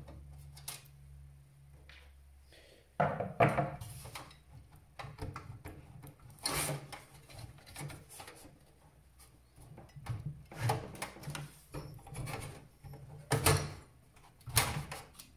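Hands handling computer hardware on a workbench: a series of knocks, clatters and rustles, the loudest about 3 s in and twice near the end.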